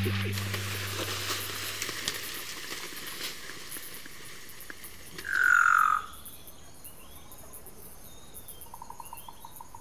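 Faint outdoor ambience with animal calls. A loud call about a second long slides down in pitch about halfway through, and a short rapid trill comes near the end. Music fades out in the first moment.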